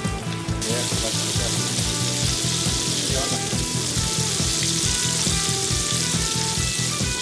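Battered redfish nuggets deep-frying in hot oil, the oil sizzling steadily; the sizzle starts abruptly about half a second in. Background music with a steady beat plays underneath.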